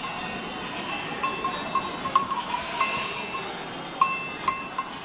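Metal bell on a goat's collar clanking irregularly, about nine strikes, each with a short ringing tone, as the goats move about at the hay.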